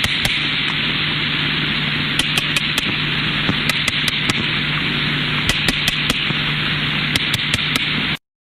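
Underwater recording of sperm whale clicks: sharp, irregularly spaced clicks, sometimes several in quick succession, over a steady hiss with a low hum. The recording cuts off suddenly near the end.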